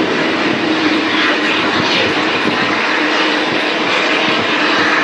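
Jet engines of a taxiing Airbus A330 airliner running at taxi power: a loud, steady rush of jet noise over a constant low hum.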